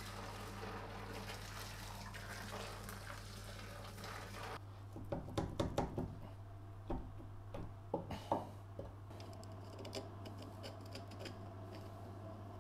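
Hot water pouring from a kettle into a plastic bucket of metal machine parts for about the first four and a half seconds, then metal parts clinking and knocking as bevel gears are handled in a cast gear housing. A low steady hum runs underneath throughout.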